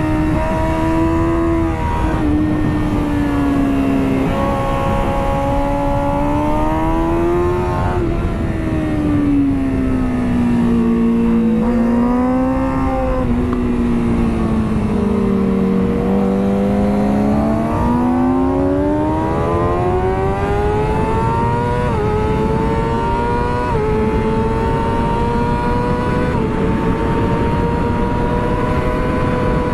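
A 2009 Kawasaki ZX-6R's inline-four engine heard onboard at track speed over steady wind rush. The revs fall through the middle as the bike slows for a corner, then climb again, with a few quick gear changes near the end.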